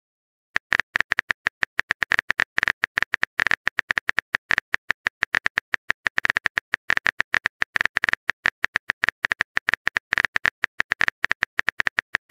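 Rapid phone-keyboard tapping sound effect: a long run of short, sharp clicks, several a second, as a text message is typed out, starting about half a second in.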